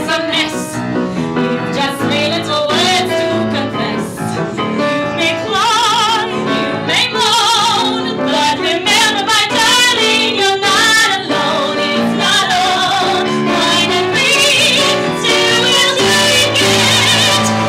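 Two women singing a musical-theatre duet with wide vibrato, accompanied by a grand piano.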